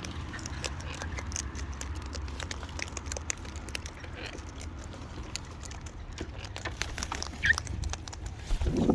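Many small clicks and taps of birds pecking at seed, over a steady low hum, with a short bird call about seven and a half seconds in and a louder squawk near the end.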